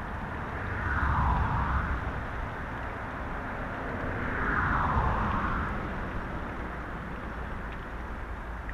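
Steady outdoor rushing noise of wind and flowing river water, swelling louder twice, about a second in and again around four to five seconds in.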